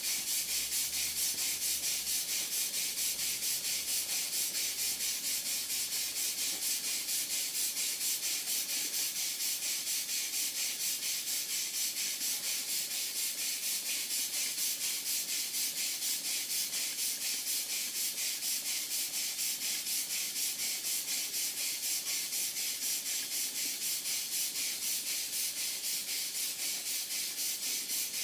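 Small horizontal model steam engine running steadily on live steam, its exhaust a continuous hiss that pulses evenly several times a second with the strokes.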